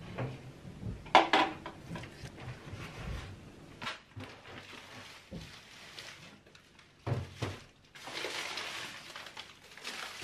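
Household items being taken out of a kitchen cabinet and set down on the counter: knocks and clatters of plastic containers and bottles. There is one loud knock about a second in, more knocks about two-thirds of the way through, and a stretch of rustling near the end.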